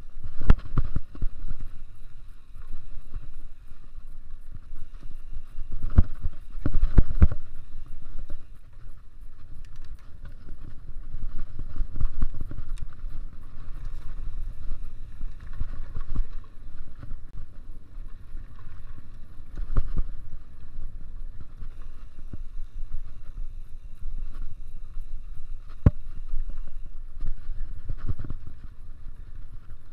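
Mountain bike being ridden on a dirt cross-country trail: a continuous rumble of tyres and riding noise, with irregular knocks and jolts as the bike goes over bumps.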